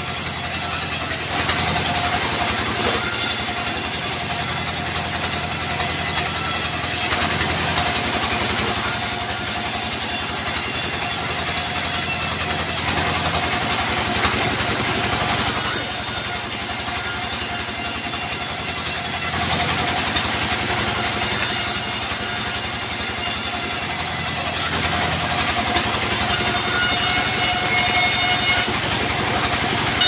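Engine-driven vertical band sawmill running steadily, with its band saw cutting timber in repeated passes. A constant engine drone sits under a hissing cut that runs for a few seconds and stops briefly between passes, about five times.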